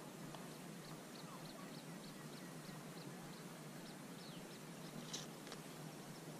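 Birds calling faintly: a rapid run of short high chirps, about three or four a second, with a few falling notes, over a steady background hiss. A short sharp sound stands out about five seconds in.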